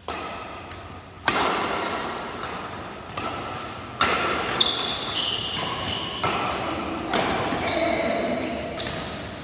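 Badminton rackets striking a shuttlecock back and forth in a doubles rally: sharp hits about once a second, each echoing around a large indoor hall.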